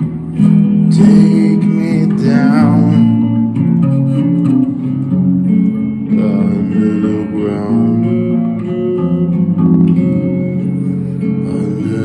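Gold-top Les Paul-style electric guitar being played, held chords and melodic notes in a slow song.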